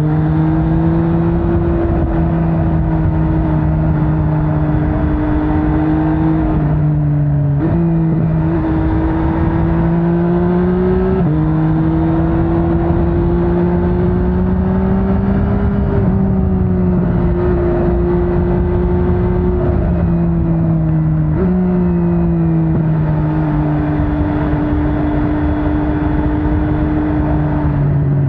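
MV Agusta Brutale 800's three-cylinder engine running under way, its revs rising and falling steadily with a few sudden steps in pitch where gears are changed, over wind and road noise.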